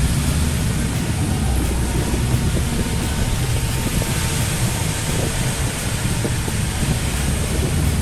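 Steady wind rumble and hiss on the microphone as an electric scooter is ridden slowly; no engine note is heard.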